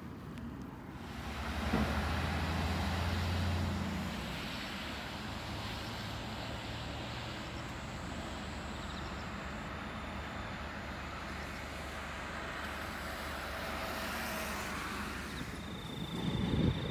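Road traffic noise: a low engine hum as a vehicle passes about two to four seconds in, then steady road rumble, with a few handling knocks near the end.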